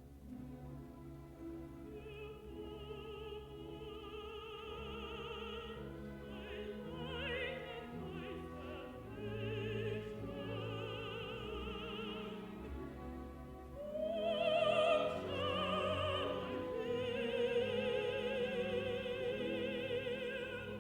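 A contralto singing long, held notes with a wide vibrato over a full orchestra, growing louder about two-thirds of the way through.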